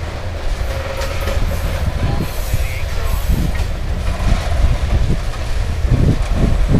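Loaded covered hopper cars of a grain train rolling past: a steady low rumble of steel wheels on the rail, with repeated clacks and thumps from the wheels, more of them near the end.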